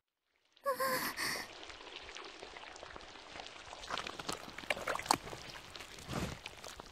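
A young woman's short startled gasp about a second in, then the wet sound of sinking quicksand: a steady watery hiss dotted with small drips and pops.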